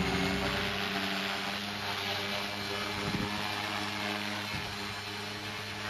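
Walkera V450D03 electric RC helicopter hovering close by: a steady hum from its spinning rotor blades and brushless outrunner motor, easing slightly quieter.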